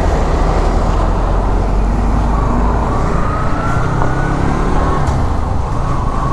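Motorcycle riding along a road: the engine running under heavy wind rumble on the microphone, with a faint tone that rises slowly through the middle.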